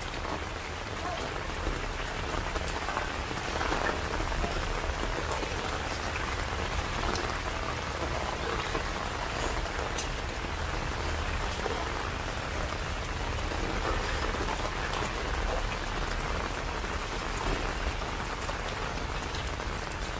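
Steady rain falling on a wet street and spattering into puddles of standing water.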